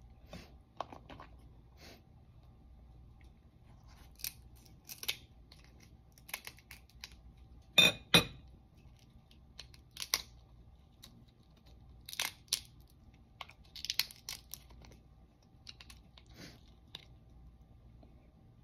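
Steamed crab shell being cracked and pulled apart by hand to get at the meat: a string of scattered sharp snaps and crackles, the loudest a pair of cracks about eight seconds in.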